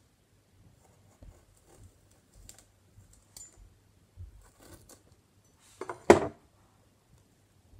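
Kitchen knife cutting spinach leaves on a cutting board: soft scattered taps and rustles, then one louder knock about six seconds in.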